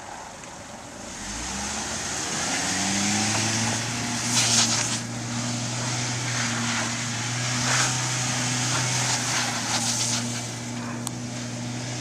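A motor starting up, its hum rising in pitch over about two seconds and then running steadily, under a hiss with a few louder rustles.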